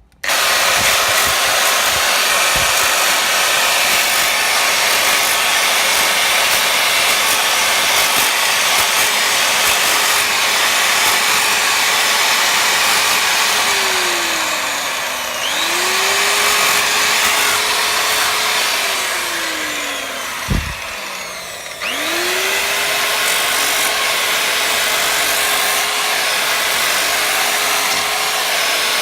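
Handheld electric power tool running continuously, working on a drum-brake part as an anti-squeal fix. Its motor pitch sags twice under load, about halfway through and again around twenty seconds in, then picks back up, with a single knock just before the second recovery.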